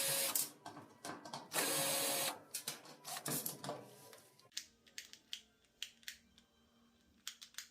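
A power screwdriver runs in three short bursts, backing out the screws that hold a dryer's door lock. After that come scattered small clicks and taps as the parts are handled.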